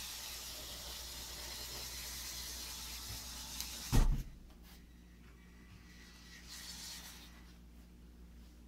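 Power Functions motors and gears of a LEGO Technic 8081 B-model car running steadily as it drives across a wooden board. A sharp knock about four seconds in, the loudest sound, as the car runs into a wall. After that it is quieter, with a brief burst of motor noise near seven seconds.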